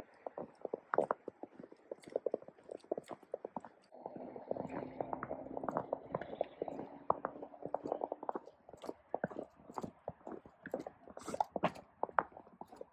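Boots crunching through fresh snow, step after step, with a steady walking rhythm.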